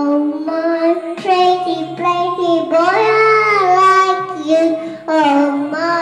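A young girl singing a pop ballad into a karaoke microphone. Her voice is loud and holds long notes, with a short break about four and a half seconds in, and a faint backing track runs beneath.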